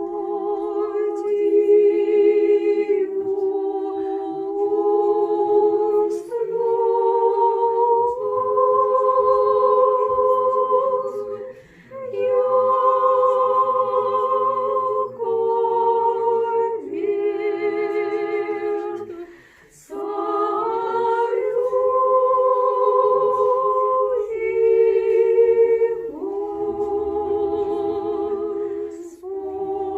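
Russian Orthodox church choir singing liturgical chant a cappella: long held notes in close harmony with vibrato, in phrases broken by two short pauses for breath.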